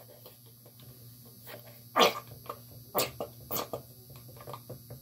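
A nearly empty plastic squeeze bottle of glue sputtering as it is squeezed, giving three short spluttering bursts in the second half. Small clicks come from a stick stirring in a plastic container.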